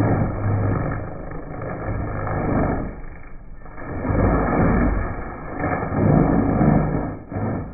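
Sawmill log-processing machine running, its belt-driven cutter head chewing into a log as spiked rollers turn it: a loud, rough grinding noise over a low rumble that swells and eases several times.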